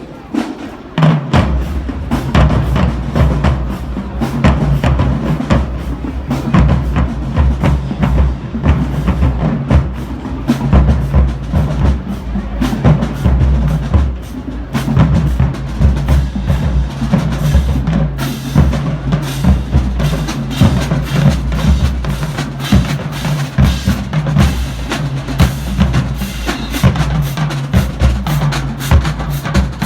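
Marching band drumline playing a marching cadence: rapid, dense snare strokes over low pitched bass drum notes, with the full drumline coming in about a second in.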